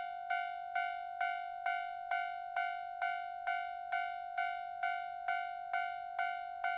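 Railroad crossing warning bell ringing its repeated 'kan kan', about two strikes a second with an even ringing tone.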